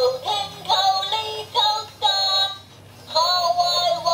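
Toy robot dog's built-in speaker playing a song in a high, synthetic child-like singing voice. The sound is thin, with no bass, and it comes in short phrases with a pause about two-thirds of the way through.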